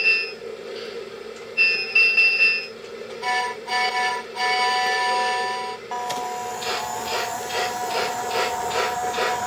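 Lionel Polar Express G-scale locomotive's built-in sound effects: short ringing electronic tones, then a two-note whistle sounding two short toots and a longer blast, and from about six seconds in a held whistle over rhythmic steam chuffing as the train pulls away.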